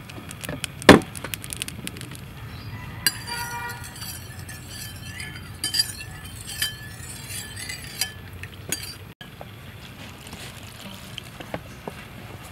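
A metal spoon stirring liquid in a ceramic bowl, clinking against the sides with ringing taps, after one sharp knock about a second in. Near the end, softer scraping as a spoon works through dry flour in a steel bowl.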